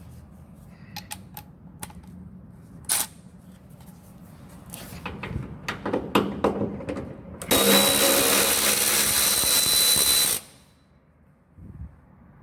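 Scattered tool clicks and knocks, then a Milwaukee M12 Fuel cordless ratchet runs under power for about three seconds with a steady high whine and stops abruptly. A short knock follows near the end.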